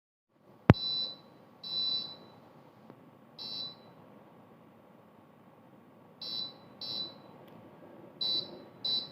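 The buzzer of a homemade laser security alarm circuit sounding in short, high-pitched beeps at irregular intervals, mostly in pairs: the alarm being set off. A sharp click just before the first beep is the loudest sound.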